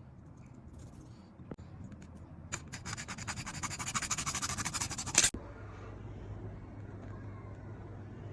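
PPR plastic pipe being cut: a quick run of scratchy strokes that grows louder from about two and a half seconds in and ends in a sharp snap a little past five seconds. A low steady hum follows.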